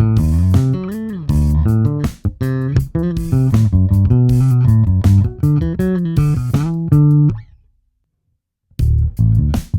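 2013 Gibson EB 5-string electric bass played solo: a run of plucked notes with sharp attacks and a bend in pitch about a second in. The playing stops for about a second near the end, then starts again.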